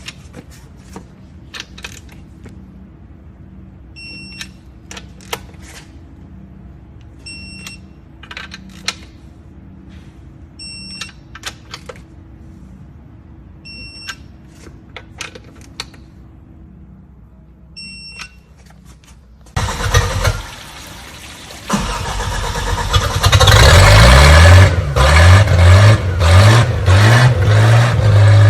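A remanufactured Mercury V6 inboard boat engine being cranked about twenty seconds in and catching. It revs up and then settles into loud, steady running. Before that there is only a quiet stretch with a short high beep about every two seconds.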